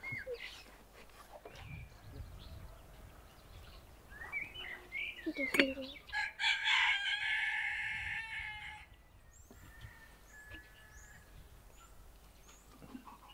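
A rooster crows once, a long call of about three seconds starting about halfway through and the loudest sound here. Small birds chirp around it.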